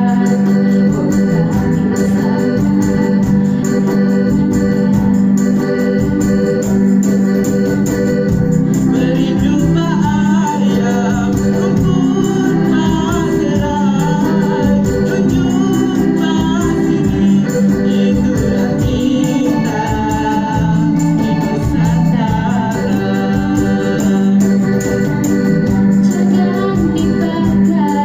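Live band music with sustained electronic-organ keyboard chords. A voice singing a wavering melody joins about nine seconds in.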